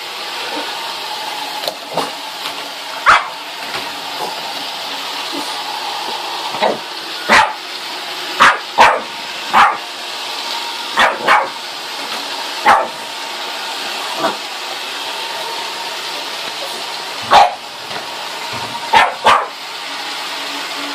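Boston terrier barking repeatedly in short sharp barks, several in quick pairs, over the steady whir of a Roomba robot vacuum running.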